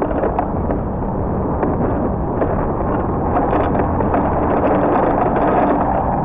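Steady wind rushing over the microphone of a camera carried on a moving bicycle, over the rumble of riding on pavement, with small clicks and rattles from the bike.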